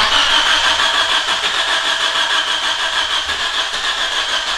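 Starter motor cranking the Nissan Almera N16's 1.8-litre four-cylinder petrol engine in one steady run that stops abruptly, the engine turning over without catching. The engine has lost its compression because the timing marks have jumped.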